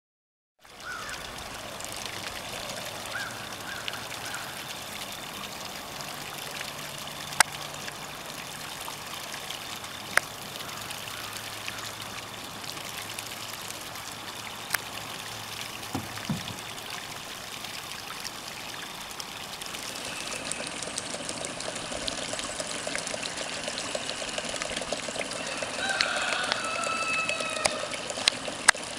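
Steady splashing and trickling of water stirred up by motorized swimming duck decoys, with a few sharp clicks.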